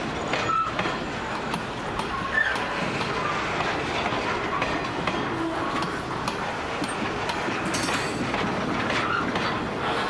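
Loaded BGKF grain hopper wagons rolling past, their wheels clicking and clattering over the rail joints, with short wheel squeals now and then.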